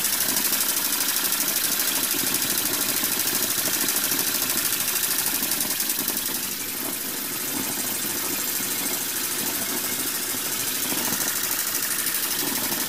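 Homemade single-cylinder steam engine running fast on live steam from a homemade boiler. It makes a rapid, even beat over a continuous hiss of escaping steam.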